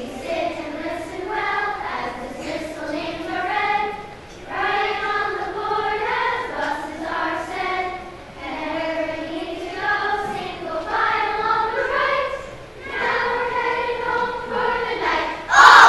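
Children's choir singing in sung phrases with held notes. Applause breaks out near the end.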